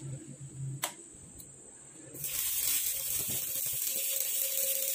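Stick (MMA) welding arc from an iNGCO inverter welder: after a quiet start with a single click, the arc strikes about two seconds in and goes on with a steady, loud crackling sizzle.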